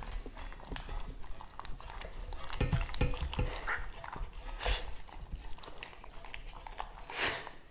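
Italian greyhounds licking and lapping the last of their raw food from stainless steel bowls, with many short clicks and clinks of tongue and muzzle against the metal. There are a few dull knocks on the bowl a little before the midpoint, and a short louder hiss near the end.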